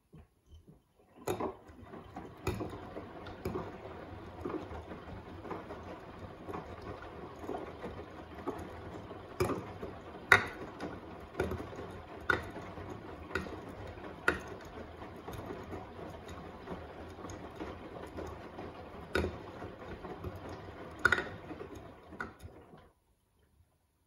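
Front-loading washing machine tumbling a load of wet laundry: a steady churning from the turning drum with a sharp click or knock about once a second. It starts about a second in and cuts off shortly before the end.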